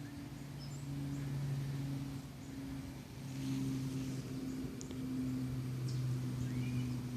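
Steady low machine hum with two steady tones that swell and fade a little, with faint bird chirps now and then.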